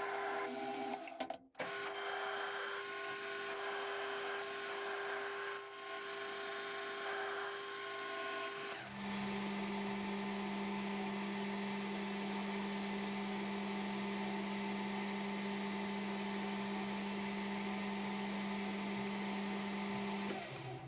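Machine tool running steadily while machining a small steel part, with a hum over a noisy hiss. Near the start the sound briefly cuts out, and about nine seconds in the hum drops to a lower pitch as the machine runs at a different speed.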